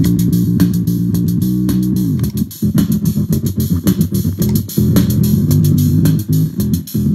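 Electric bass played through a gated bass fuzz and an octave pedal, giving a thick, synth-like fuzz tone with a downward slide about two seconds in, over a looped drum beat with regular sharp hits.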